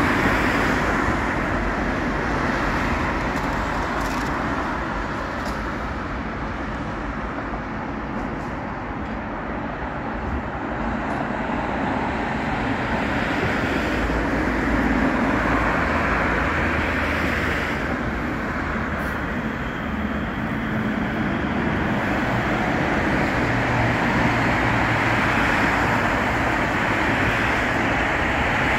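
Road traffic, cars passing one after another in slow swells, with a light-rail tram on the track below near the start and another coming in near the end.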